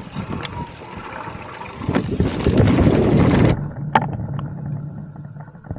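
Mountain bike rolling down a dirt trail: tyre roar and wind rush on the camera microphone, swelling to its loudest in the middle and cutting off abruptly, then a lower steady hum with a few sharp clicks and rattles.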